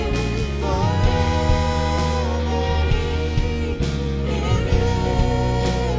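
A live worship band with singers: voices hold long sung lines over electric guitar, bass and a steady drum beat.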